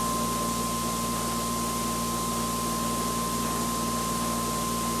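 A generator test rig's electric prime-mover motor and generator rotor running steadily at about 3,500 rpm, with the generator coil under load. It makes a constant high whine over a hiss and a lower hum.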